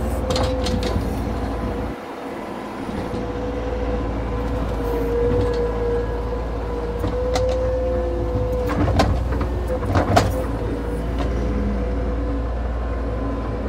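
Skid-steer loader's engine running under load while pushing snow, a steady whine over a low rumble. The low rumble dips for a moment about two seconds in, and a few sharp clanks come near the end.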